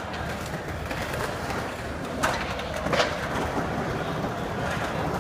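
Skate park ambience: a steady murmur of people and city noise, broken by two short skateboard clacks about two and three seconds in.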